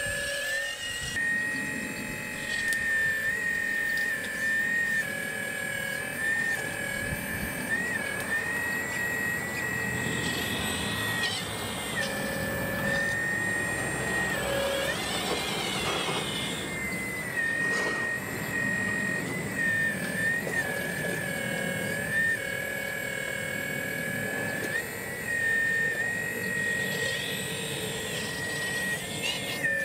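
Hydraulic pump of a scale RC CAT 6015B excavator whining steadily, its pitch dipping and shifting slightly every few seconds as the boom and bucket move under load while digging dirt.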